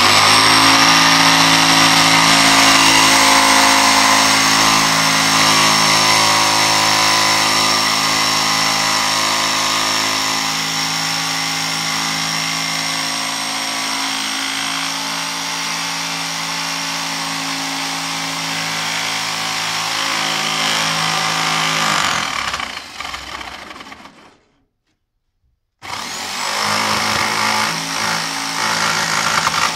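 Electric jigsaw cutting through a cured fibreglass skateboard blank, its motor running with a steady high whine and the blade chattering through the glass-fibre layup. It winds down about two-thirds of the way through, falls silent briefly, then starts up and cuts again near the end.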